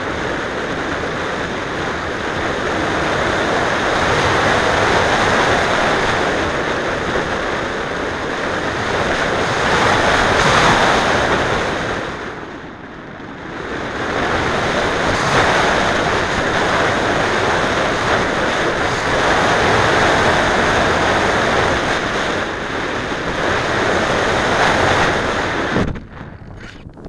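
Rushing wind and airflow buffeting the microphone of a keychain camera riding on an unpowered slope-soaring glider in flight. The noise swells and fades with the glider's speed, dips briefly about halfway through, and drops away sharply near the end.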